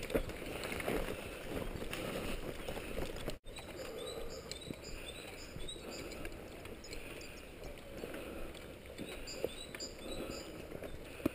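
Footsteps and rustling gear of a group walking on a forest path, with birds singing in short repeated high chirps from a few seconds in. The sound drops out for an instant about a third of the way through.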